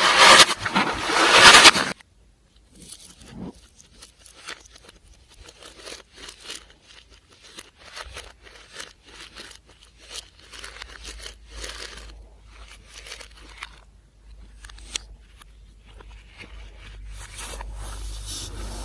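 A loud spraying hiss for about two seconds that cuts off abruptly, followed by soft, irregular crackling and squishing as slime is worked and mixed.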